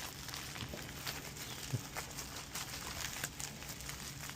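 Scattered faint clicks and light rustling of small electronic parts and their packaging being handled, over a low steady hum.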